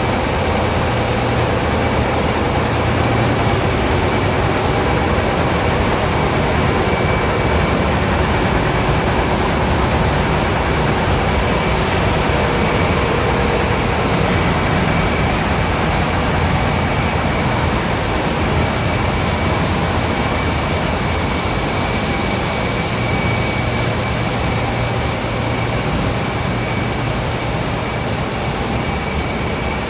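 Diaper production line running: a loud, steady mechanical din from its rollers and drums, with a constant high whine over it.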